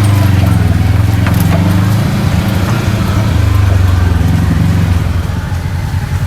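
Kawasaki KRX 1000 side-by-side's parallel-twin engine running steadily while driving a trail, easing off a little near the end, with a few light clicks over it.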